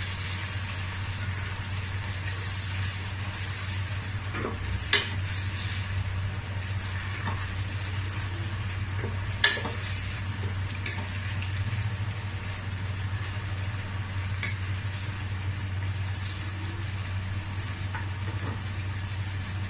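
Food frying in a pot of vegetable oil and red palm oil, sizzling steadily, with a steady low hum underneath. A utensil clicks sharply against the pot twice, about five and nine seconds in, with a few lighter taps besides.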